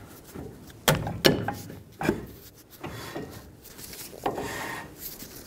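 Drilled and slotted rear brake rotor being fitted over the wheel studs onto a Ford F-150 axle hub and turned by hand. A few sharp metal knocks come first, then a scraping rub about four seconds in, where the new parking brake shoes lightly drag inside the rotor.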